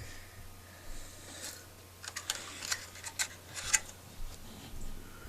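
Light clicks and taps from a hand-held plastic rear-projection TV lamp unit being turned over and handled, with a cluster of sharper clicks about two to four seconds in. A faint steady low hum runs underneath.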